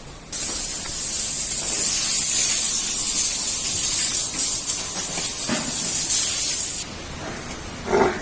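A steady, loud spraying hiss that starts suddenly just after the beginning and cuts off abruptly about seven seconds in.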